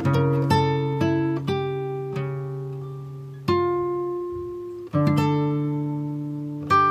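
Background music of plucked string notes, each starting sharply and ringing away, about two a second at first, then more spaced out with longer ringing notes in the middle.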